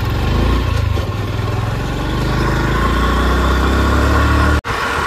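Motorcycle engine running as the bike rides along, its pitch shifting a few times, under a steady rush of wind on the helmet-mounted phone's microphone. The whole sound drops out abruptly for an instant near the end.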